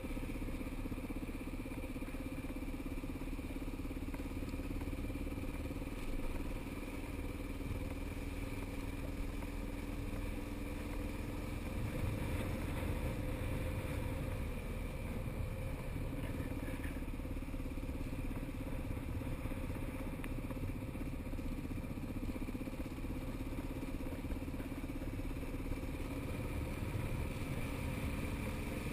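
Motorcycle engine running at low road speed, with a steady low wind rumble on the microphone. The engine note drops and fades about halfway through as the bike slows through a bend, then rises again near the end as it picks up speed.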